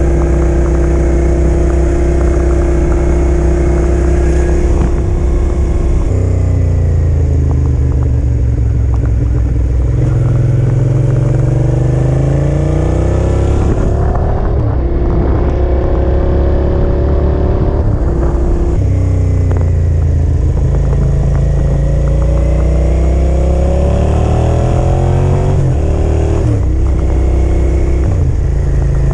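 Motorcycle engine running under way, heard from the rider's seat. Its pitch climbs steadily and drops sharply several times as the bike accelerates and shifts up through the gears.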